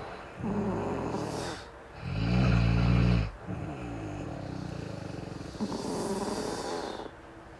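Snoring: a run of slow, rattling snore breaths with hissing breath between them, the loudest snore about two seconds in.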